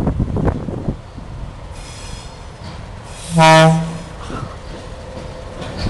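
FEPASA D-18 diesel locomotives running in multiple as they approach, with a low rumble throughout. A brief high-pitched squeal comes about two seconds in. A short single-note horn blast, the loudest sound, follows about three and a half seconds in.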